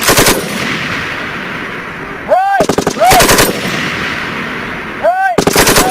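M240B machine gun firing short bursts of 7.62 mm rounds: three bursts of rapid shots about two and a half seconds apart, with the echo of the shots hanging between bursts.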